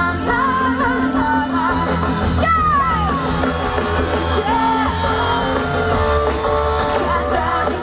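Live pop-rock music: a woman singing through a PA over an amplified band with bass guitar, with a falling slide about three seconds in.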